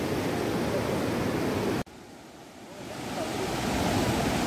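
Ocean surf on a beach, a steady rush of noise. It cuts off abruptly about two seconds in, then fades back up over the next two seconds.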